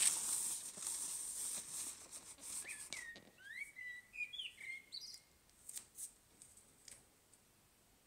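Garden bird recorded on a mobile phone from inside a bedroom, singing a few short whistled phrases that glide up and down, starting about two and a half seconds in. Before that comes a loud scratchy, rasping noise, and a few sharp clicks follow near the end.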